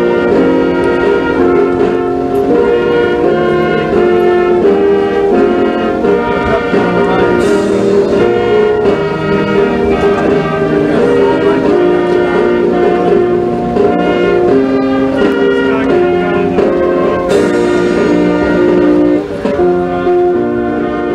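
Brass instruments playing slow music in long held chords, with two crashes about ten seconds apart.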